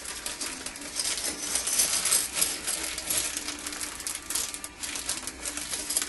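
Quick, continuous clicking and clattering of small hard parts being handled: a DB-9 connector shell being taken out and opened up.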